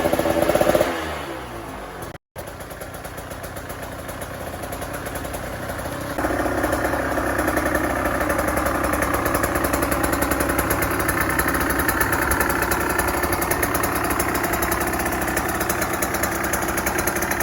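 2023 KTM 125 SX two-stroke engine running on a stand through a new FMF 2.1 full exhaust system. A blip of revs peaks and falls away in the first second or two; after a brief cut it runs steadily, then steps up louder about six seconds in and holds there. The rider calls it "pretty sick" and "way crispier", revving higher and louder than stock.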